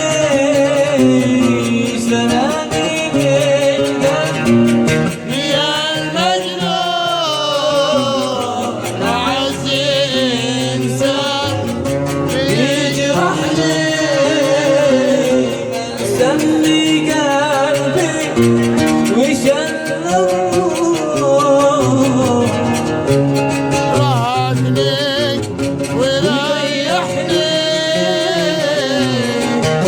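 A man singing in a wavering, ornamented style, accompanied by a plucked string instrument.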